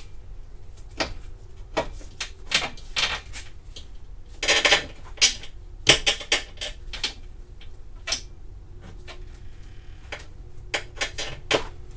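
Irregular clicks, taps and knocks of hand work on a car bumper's parts and hardware, with a brief scraping rustle about four and a half seconds in.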